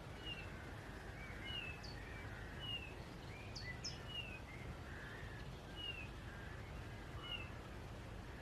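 Faint woodland birdsong: one bird repeats a short falling call about every second and a half, with a few other chirps from other birds, over a steady low outdoor rumble.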